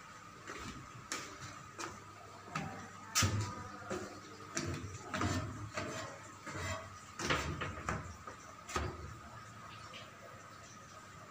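Scattered metallic knocks and clanks of repair work in a ship's engine room, irregular and a second or so apart, over a faint steady high whine.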